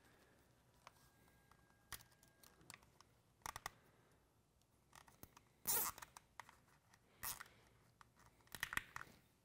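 Hands handling a wire harness in corrugated plastic loom tubing: short rustling and scraping sounds, about five in all, the loudest a little before the middle.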